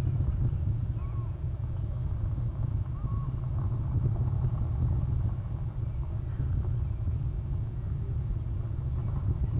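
Steady low outdoor rumble picked up by a seaside webcam's microphone, with two faint short whistle-like notes about a second and three seconds in.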